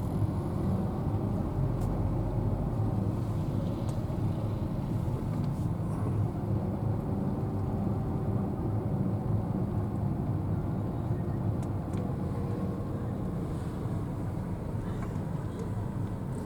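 Steady low rumble of an engine running, with faint wavering tones and a few light clicks.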